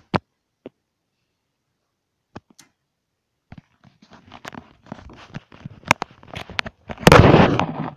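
Handling noise on the recording device: a sharp click, a few seconds of near quiet with scattered ticks, then crackly rustling and scraping that builds into a loud rubbing burst near the end.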